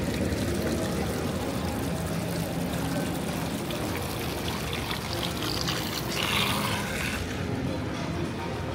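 Water pouring from a stainless-steel spout into a pool, a steady splashing stream, loudest for a moment about six seconds in.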